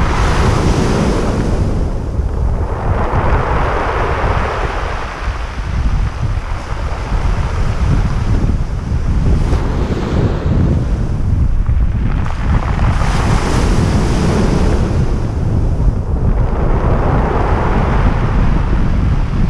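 Surf breaking and washing up the shore in several surges, over steady wind rumble on the microphone.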